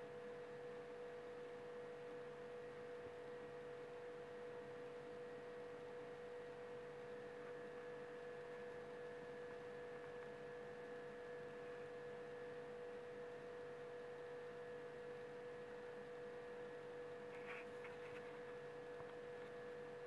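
Faint, steady electrical whine at one pitch over low hiss, with a couple of faint ticks near the end.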